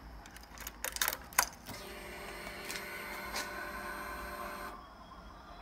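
Ignition key clicking and keys jingling as the key is turned on a Yamaha MT-09, then the electric fuel pump whining steadily for about three seconds as it primes at key-on, cutting off sharply.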